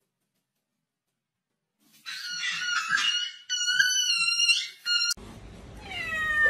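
A puppy's high-pitched, squeaky whining cries for about three seconds, wavering in pitch. Near the end, a tortoiseshell cat meows once, the pitch falling.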